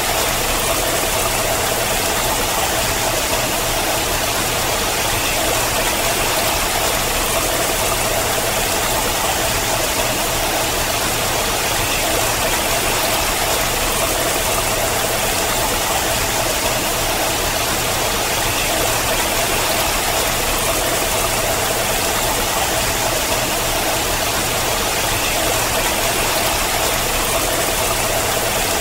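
Water falling in thin streams down a rock face, a steady, unbroken rush of splashing with a low rumble underneath.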